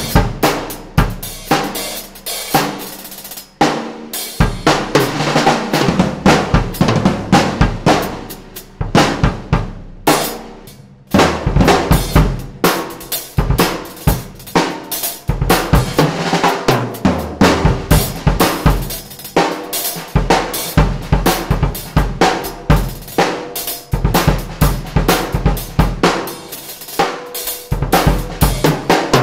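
Sonor Smart Force drum kit (22-inch kick, 12- and 13-inch rack toms, 16-inch floor tom, 14-inch snare) played with sticks in a groove of kick, snare, toms and cymbals. The heads are tuned low at first; after a short break about eleven seconds in, the kit plays on tuned medium.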